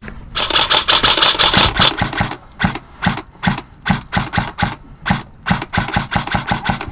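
Airsoft electric gun firing: a sustained full-auto burst with a buzzing motor-like rattle, then a long run of rapid single shots in quick clusters.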